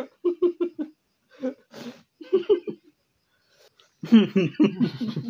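Men laughing: a quick run of 'ha-ha' laughter at the start, a short breathy sound about two seconds in, and more laughing and voice near the end.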